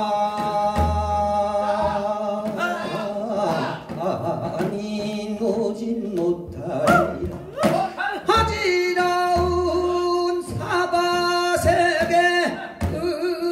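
A man singing a Korean folk song (gugak) into a microphone, with long held notes that waver in pitch, over a low accompaniment that comes and goes.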